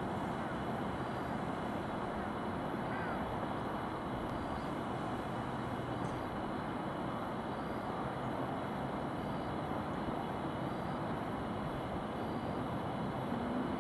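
Distant town and traffic hum: an even, steady wash of noise with faint high steady tones above it, and no single vehicle or train standing out.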